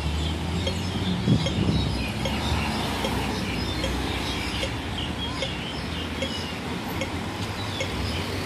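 Road traffic passing close by, including a minibus and cars, as a steady low engine rumble. Many small birds chirp over it throughout, and a faint regular ticking runs underneath.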